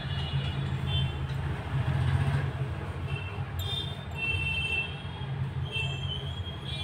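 A steady low hum of background noise, with a few faint, short high-pitched tones scattered through it.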